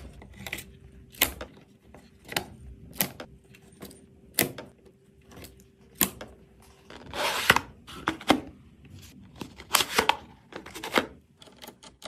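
A string of sharp clicks and knocks, roughly one a second, from computer parts being handled and fitted together during a PC build, with a longer rustle about seven seconds in.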